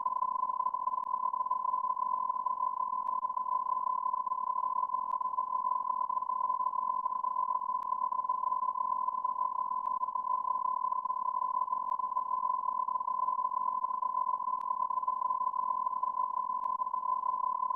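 A steady electronic beep tone, one high pitch held without a break or change.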